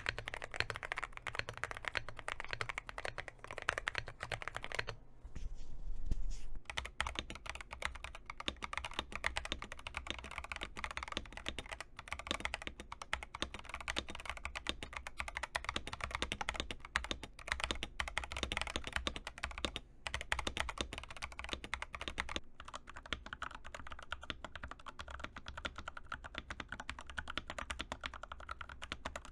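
Continuous typing on mechanical keyboards: a Higround keyboard first, then, after a brief break about six seconds in, an Epomaker TH80. Keystrokes click in quick, dense succession.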